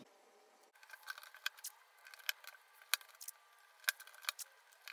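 Masking tape being laid in strips across a painted panel and pressed down by hand: faint, irregular crackles and ticks, a few a second.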